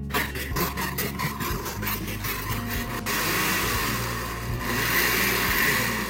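Oster Reverse blender's motor running loudly, grinding peanuts in its glass jar. It has a fast rattle of about five beats a second for the first three seconds, then settles into a steady run. The peanuts are going dry and crumbly like farofa instead of turning into peanut butter, a sign this blender is not made for the job.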